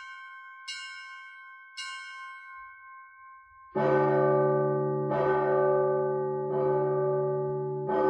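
Russian church bell ringing. A higher bell is struck a few times, each stroke ringing on, then a much louder deep bell begins a little before halfway, struck about every second and a half, its strokes overlapping as each one hums on.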